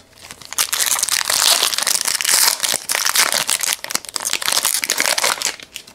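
Foil wrapper of a football trading-card pack being torn open and crinkled by hand: a dense crackling that starts about half a second in and stops shortly before the end.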